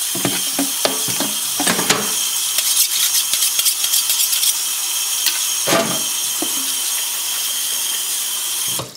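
Kitchen tap running in a steady stream onto raw quails in a plastic colander as they are rinsed by hand, with a few knocks from handling the colander. The water cuts off sharply near the end as the tap is shut.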